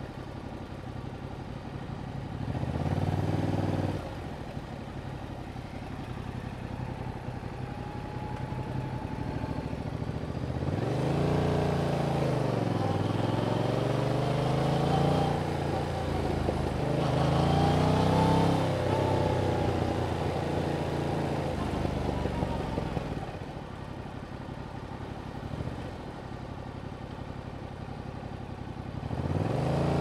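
Yamaha MT-07's 689 cc parallel-twin engine through its stock exhaust, running low and steady with a short rev about three seconds in. From about eleven seconds it pulls away, the pitch climbing and dropping several times as it works through the gears. It eases back to a low steady note and starts to climb again near the end.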